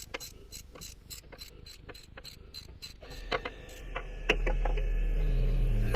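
Hand ratchet wrench clicking in a quick even run of about four or five clicks a second, then a few slower, louder clicks. A low steady hum comes up about two-thirds of the way through.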